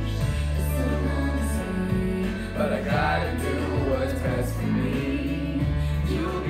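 Music: a slow pop song with long held bass notes under the backing, and some singing.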